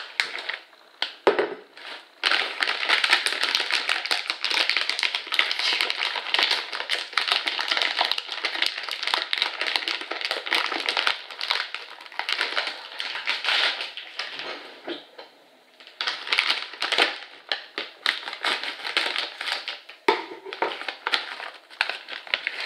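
Foil-lined plastic chip bag crinkling loudly as it is pulled open and handled, in long stretches of dense crackle with a short lull about two-thirds of the way through.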